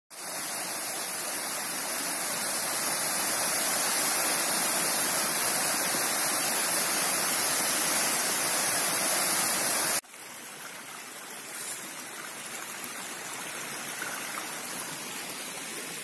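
Small mountain waterfall spilling down stepped rock ledges: a steady rush of falling water. About ten seconds in it cuts off abruptly to a quieter, fainter rush.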